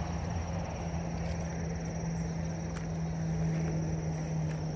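Steady road traffic noise: a constant low hum over a low rushing haze. Over it, insects such as crickets trill in one thin, high, unbroken tone.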